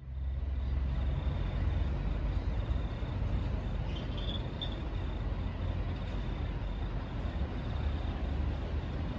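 Steady low rumble of a slow-moving passenger train's stainless steel carriages rolling past on the rails, over city background noise, with a short high squeak about four seconds in.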